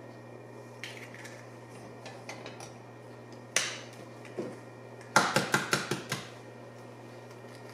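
Eggshells and utensils knocking and clinking against a stainless steel saucepan as eggs are cracked into it: a single sharp knock about three and a half seconds in, a lighter one shortly after, then a quick run of about seven clinks.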